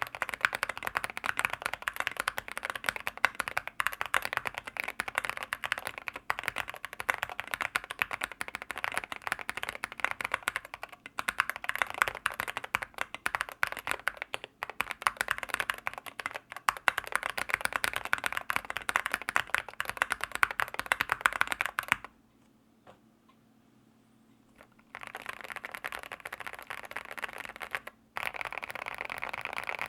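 Fast typing on a mechanical keyboard with linear switches: a dense run of key clacks, broken by a quiet gap of about three seconds roughly three quarters of the way through, after which the typing resumes.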